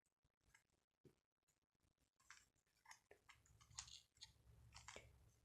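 Faint, irregular plastic clicking and scraping of a 3x3 Rubik's Cube's layers being turned through a solving algorithm.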